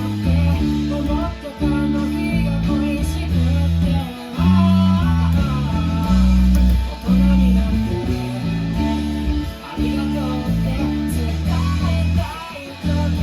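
Electric bass guitar playing a line of held notes along with a rock band track, guitars over it.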